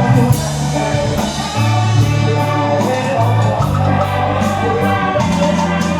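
Live band music: a cumbia-style song with a steady bass line, guitar and drum beat, with singing.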